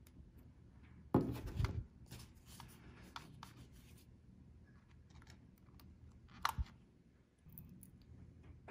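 Handling noises as a smartphone and small lens-protector parts are moved about on a tabletop: a louder knock with rubbing about a second in, scattered light clicks and rubs, and one sharp click about six and a half seconds in.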